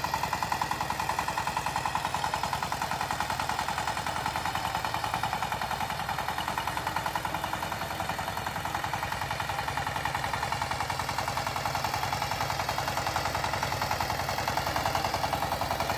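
Power tiller's single-cylinder diesel engine running steadily under load as its rotary tiller churns through the soil, a rapid, even chugging of firing strokes.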